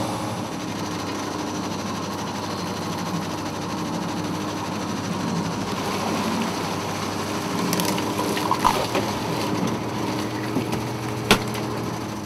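Steady mechanical drone of a fishing boat's engine and hydraulic net hauler while a net is hauled aboard, with water splashing and dripping. A few knocks in the second half and one sharp click near the end.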